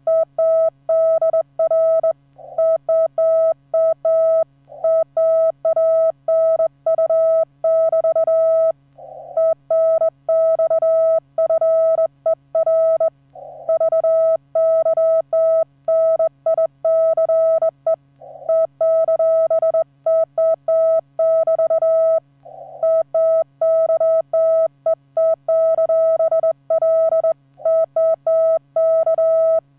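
Morse code from an amateur radio transceiver working CW on the 15-metre band: a single steady-pitched tone keyed on and off in rapid dots and dashes, with short breaks between groups every few seconds, over a faint low hum.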